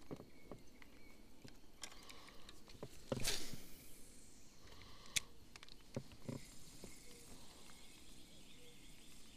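Spinning rod and reel in use from a boat: scattered light clicks and knocks of tackle handling, with one loud swish of a cast about three seconds in, falling in pitch, and a sharp click a couple of seconds later.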